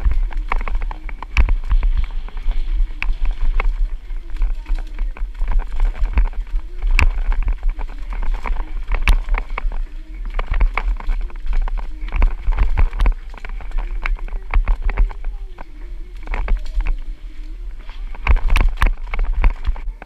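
Downhill mountain bike clattering and rattling over rocks and roots at speed, with frequent sharp knocks from impacts. A heavy low rumble of wind and trail buzz runs on the bike-mounted camera's microphone throughout.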